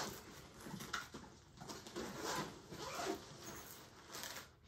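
Nylon backpack fabric rustling and rubbing as it is handled and opened, in a run of short scratchy rustles.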